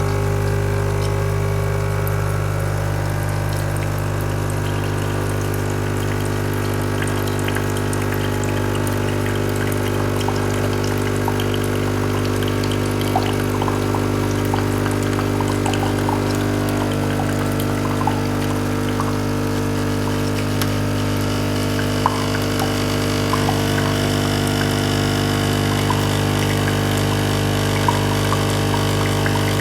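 Automatic coffee machine's pump humming steadily as coffee is dispensed, with small crackles and drips of liquid over it. The hum changes tone about halfway through.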